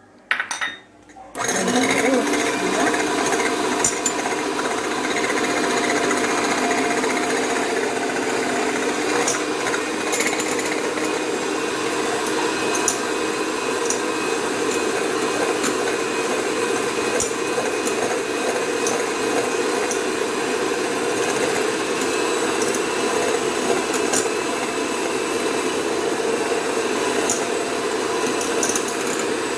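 Handheld electric mixer starting up about a second and a half in and running steadily, its beaters whipping eggs in a bowl; a couple of short knocks come just before it starts.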